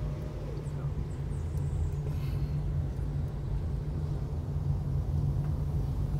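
Steady low rumble of a car's engine and tyres on the road, heard from inside the cabin while driving slowly.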